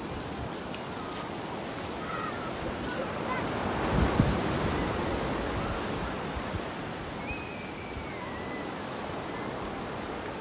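Small surf washing onto a sandy beach, a steady rush that swells about four seconds in.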